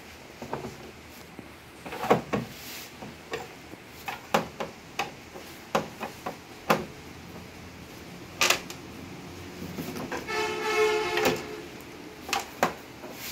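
Clicks, knocks and rattles of hands and tools working on a flat-screen TV's plastic back cover as it is taken off. About ten seconds in there is a brief pitched whine lasting a little over a second.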